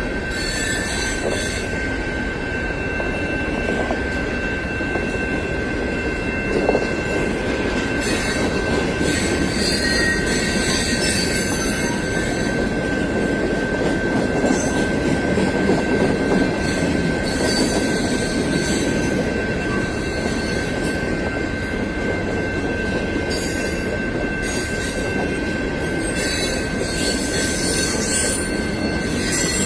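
Long freight train rolling past, a steady rumble of wheels on rail with a constant high-pitched squeal and sharper wheel squeals that come and go.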